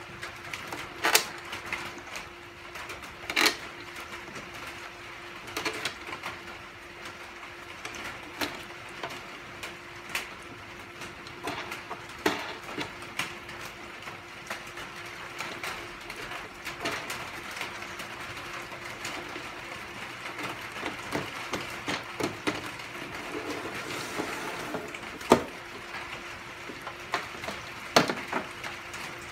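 Scattered clicks and knocks of 5/16" steel bolts and washers being handled, set on the table and pushed through the flange holes of a concrete bench leg mold as it is bolted together, over a steady low hum.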